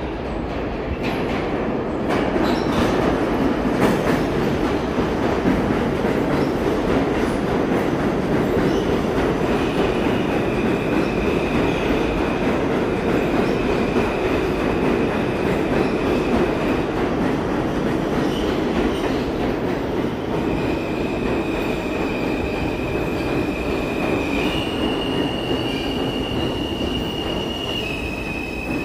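R160-series subway train pulling into a station, its wheels rumbling heavily on the rails. From about ten seconds in, high steady squealing tones come and go, shifting a little in pitch near the end as the train slows.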